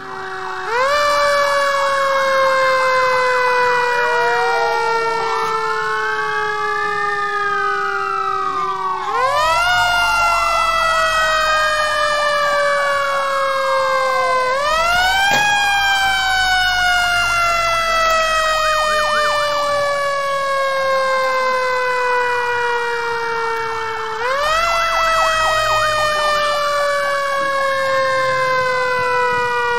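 Fire engine sirens wailing without a break. One siren climbs quickly and then slowly falls, starting over every six to nine seconds. Over it a second wail rises and falls every few seconds.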